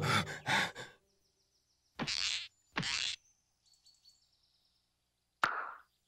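Cartoon sound effects of breathy air puffs, as if blown through a tube: a few short ones at the start, two longer whooshes about two and three seconds in, then a faint high squeak and a sharp click with a short rush of air near the end.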